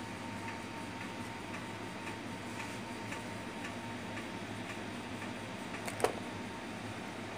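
Faint, regular ticking, about two ticks a second, like a clock, over a steady low hum. One sharp click about six seconds in.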